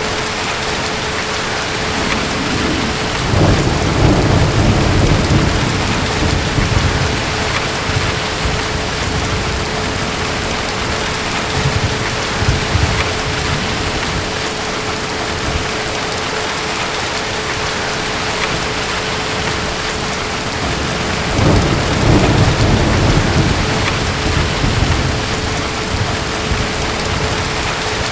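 Steady heavy rain with two long rolls of distant thunder, one a few seconds in and another about three-quarters of the way through.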